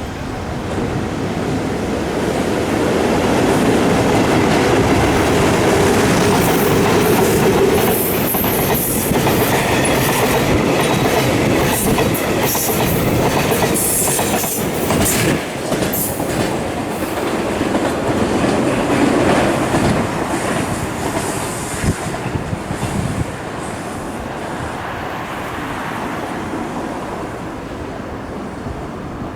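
A train running on the rails, with the clickety-clack of wheels over rail joints and some high wheel squeal. It swells over the first few seconds, eases off through the second half and cuts off abruptly at the end.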